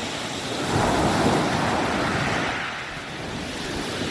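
Sea waves breaking on a shingle beach: one wave surges in about a second in, washes for a couple of seconds and fades away, with wind on the microphone.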